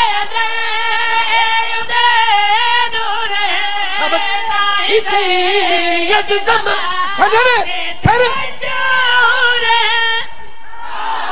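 A high solo voice singing a qasida, a devotional verse, in long wavering melodic lines. The singing stops about ten seconds in, and a crowd's noise follows.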